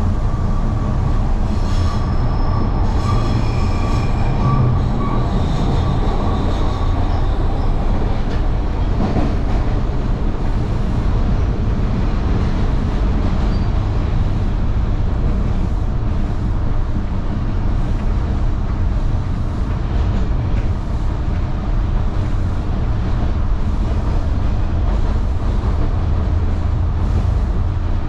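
Toronto TTC Line 2 subway train running along the track, a steady heavy rumble heard from inside the car. A high-pitched wheel squeal rides over it for the first eight seconds or so, then fades.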